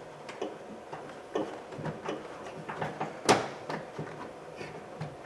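Light clicks and knocks of a metal lock rod being worked loose inside a car door's steel shell, with one sharper knock a little past halfway.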